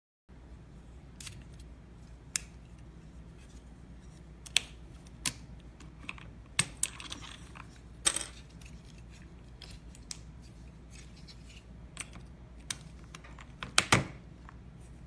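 Irregular sharp clicks and clacks of mechanical keyboard keycaps and switches and a stainless steel keycap/switch puller being handled, with a loud double clack near the end, over a low steady hum.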